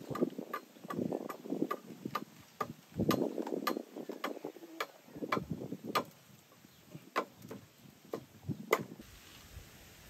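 Machete blade striking a wooden post: a run of sharp, irregular chopping knocks, several a second with short pauses, stopping about nine seconds in.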